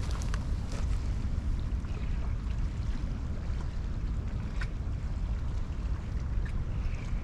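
Wind buffeting the microphone as a steady low rumble, with faint scattered ticks and clicks over it.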